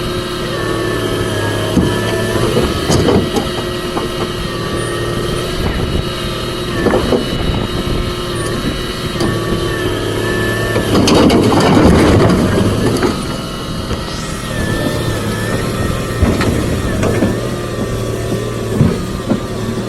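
Volvo EC290BLC excavator's diesel engine running under load, with whining tones that rise and fall in pitch over it. Scattered knocks come throughout, and the machine gets louder and rougher for about two seconds near the middle.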